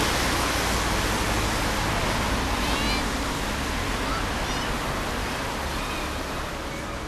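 Steady rushing hiss of car tyres on a rain-wet road, strongest as a car passes close at the start and easing slightly toward the end, with a few faint high chirps.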